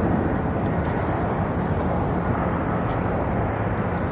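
Steady wind noise on the microphone, an unbroken low rumbling rush.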